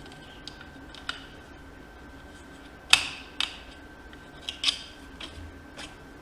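Sharp metal clicks and taps from an Allen key and the machine's metal parts being handled while the needle cylinder is bolted down, a few scattered ones with the loudest about three seconds in.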